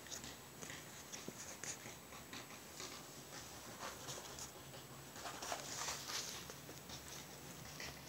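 Faint, scattered patter and rustling of puppies moving about on fabric rugs, with small scratchy clicks from paws and noses.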